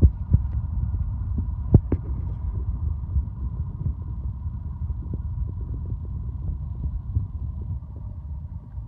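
Freight train rolling away into the distance: a steady low rumble with scattered clacks of its wheels on the track, and a faint steady high tone.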